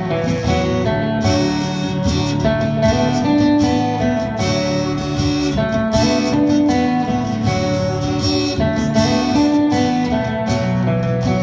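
Live acoustic band playing an instrumental stretch of a song, guitars strummed and picked, with no singing.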